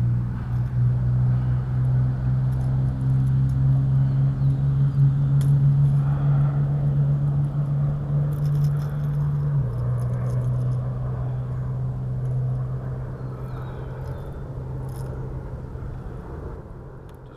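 A steady low motor hum that drops slightly in pitch about ten seconds in and then fades. Light scrapes and rattles of a fish and lure being handled in a landing net sound over it.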